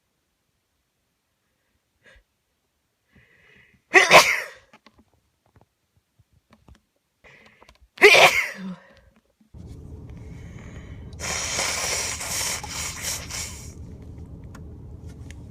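A person with a head cold sneezing twice, about four seconds apart, each sneeze preceded by a short breath in. Later a steady low hum sets in, with a few seconds of hissing noise over it.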